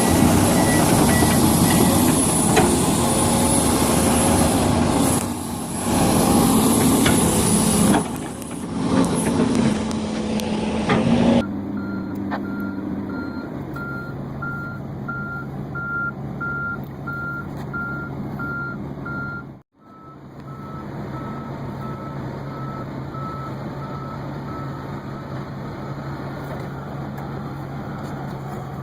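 Heavy diesel machinery running loudly. After a sudden cut, a reversing alarm beeps about twice a second over a steady diesel engine hum, and the beeping stops some seconds before the end.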